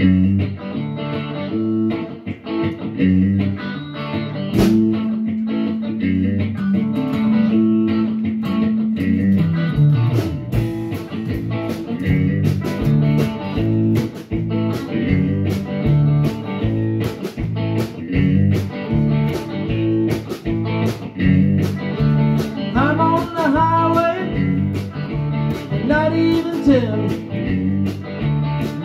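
A band plays a tune on electric bass guitar and other instruments over a steady beat. About 23 seconds in, a higher lead line with bending notes comes in.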